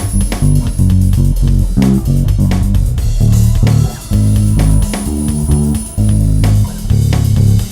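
Bass guitar played solo: a run of plucked low notes, improvised, with short breaks about four and six seconds in.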